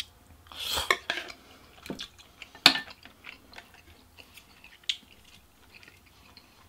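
A short slurp of ramen noodles about half a second in, then chewing with scattered small mouth sounds, and a couple of sharp clicks of chopsticks against a dish.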